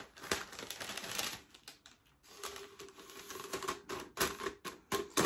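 Plastic shrink-wrap sleeve rustling and crinkling as it is slid down over a sublimation tumbler and pressed into place by hand, with a run of sharp light clicks and taps near the end.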